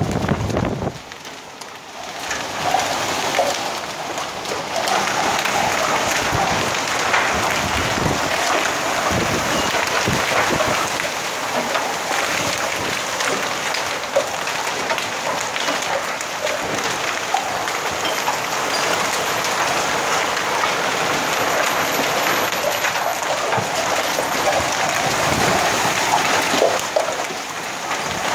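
Heavy rain pouring steadily onto the street and surfaces below, a dense hiss of countless drops that dips briefly about a second in and then holds steady.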